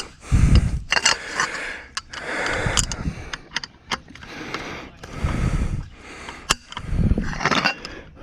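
Sharp metal clicks and clanks of a breaker bar with a cheater pipe being worked on a seized, over-torqued lug nut, between repeated low rumbling swells.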